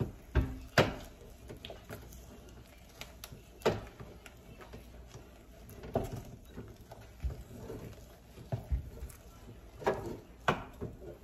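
A wooden spatula beating and stirring stiff dhido dough in a cooking pot. It knocks against the pot at irregular moments, about a dozen times, a couple of them close together near the start and near the end.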